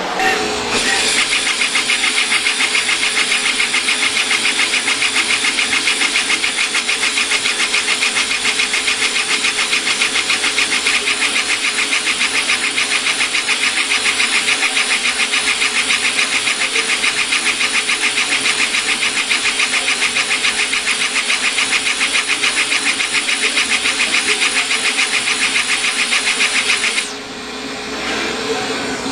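Trotec laser engraver raster-engraving a wooden box lid: a loud steady hiss with a fast, even pulse as the head sweeps back and forth. It stops suddenly about 27 seconds in, leaving a lower steady fan noise.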